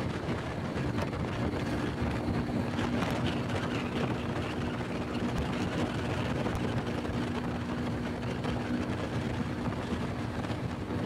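Honda Pop 100's small single-cylinder four-stroke engine running at a steady cruising speed, with wind rushing over the microphone.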